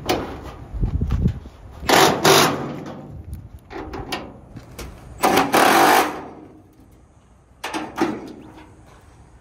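Compact cordless impact wrench hammering a bolt at the fender's top mount, which is being shimmed for fender and hood alignment. It runs in two bursts of under a second each, a few seconds apart, and a shorter third burst near the end.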